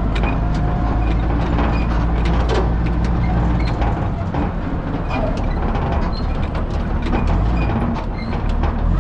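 Fire truck's engine running as it drives over rough dirt ground, with the body and fittings rattling and clanking. The engine note eases off briefly about four seconds in and again near the end.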